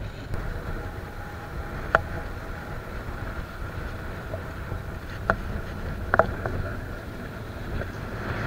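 Steady low rumble of wind on the microphone and waves washing against the sea wall, with three short sharp clicks from handling a spinning reel and rod.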